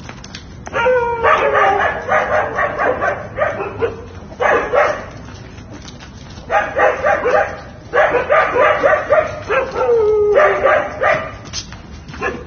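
Dogs barking and yelping in repeated bursts, with a falling whine-like cry about a second in and again near the ten-second mark.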